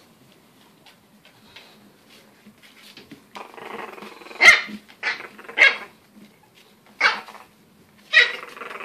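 Olde English Bulldogge puppies play-fighting: a rough growl starts about three and a half seconds in, followed by five short, high puppy barks over the next four seconds.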